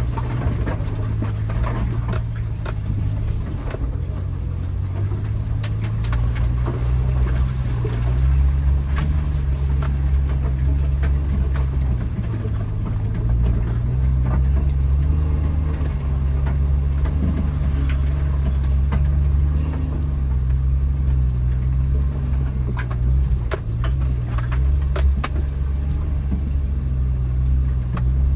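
Suzuki Jimny driving, its engine a steady low drone that rises and falls a little, with scattered knocks and rattles from the body and loose items.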